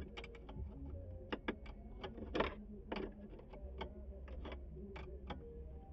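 Irregular small clicks and taps of an ignition switch and its parts being handled and set into position, the loudest about two and a half and three seconds in, over a steady low hum.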